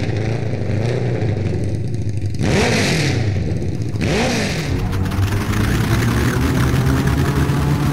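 Title-sequence sound design: a steady low drone with two whooshes about two and a half and four seconds in, each sweeping up and back down in pitch with a hiss on top, like something flying past.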